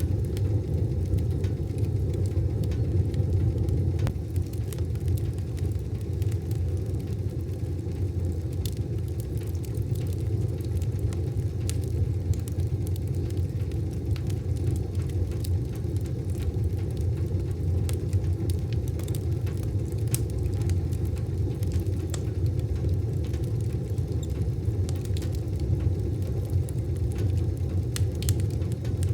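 Wood fire burning in a wood stove: a steady low rumble with scattered, irregular crackles and pops.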